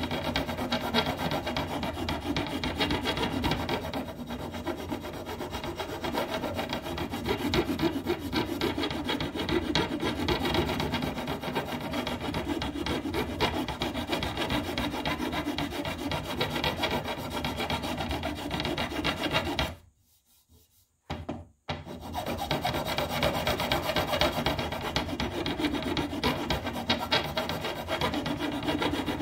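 Flat metal file rasping across the white oak handle of a longbow in repeated back-and-forth strokes, cutting a notch into the side of the handle. The filing stops for about two seconds about two-thirds of the way through, then starts again.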